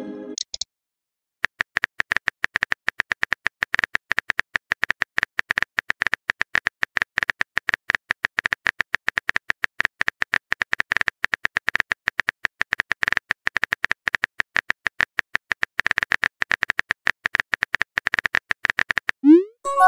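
Phone keyboard typing sound effect: a fast, steady stream of short taps as a chat message is typed out, starting about a second and a half in. It stops near the end, where a short rising swoosh marks the message being sent.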